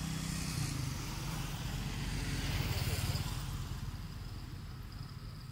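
Motor vehicle engine passing along the road, growing louder to a peak about three seconds in and then fading away.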